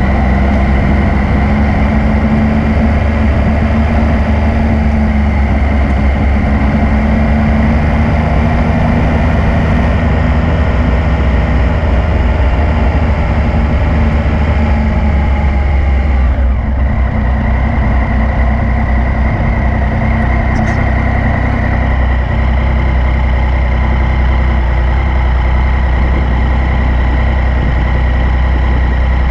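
Yamaha MT-09's three-cylinder engine running at low revs, its pitch easing down over the first half, then holding steady.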